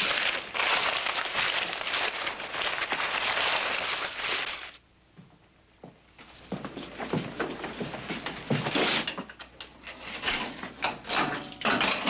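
Money being counted out of a hat on a desk: a rustling of banknotes and clinking of coins for about five seconds. After a brief quiet gap, scattered footsteps and metallic clicks follow.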